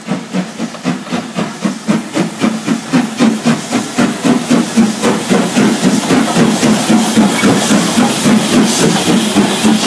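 Steam locomotive chuffing as it approaches and passes close by: a regular exhaust beat of about three a second over steam hiss, growing louder as it draws level.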